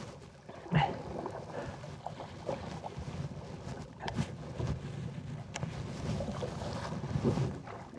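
Hooked bass fought beside a fishing boat: water noise and scattered splashes and knocks over steady wind on the microphone, with a short rising vocal grunt about a second in.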